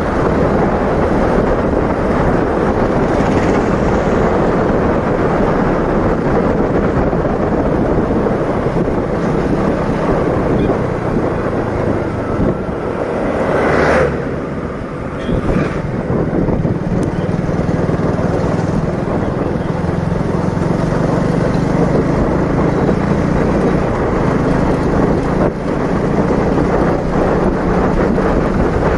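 Motorcycle engine running as the bike rides along at a steady pace, heavily mixed with wind buffeting the handlebar-mounted microphone. About halfway through there is one brief sharp noise, and the sound drops a little for a moment.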